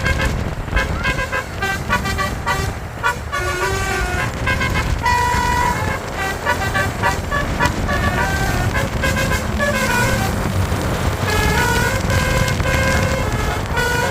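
Tour bus's basuri telolet horn, a set of electrically switched air horns, playing a quick melody of short stepped notes that change several times a second, over the low rumble of the bus and traffic.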